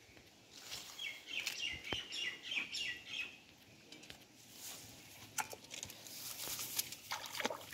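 A bird chirping, a quick run of repeated high notes lasting about two seconds, followed a few seconds later by scattered light clicks and rustles.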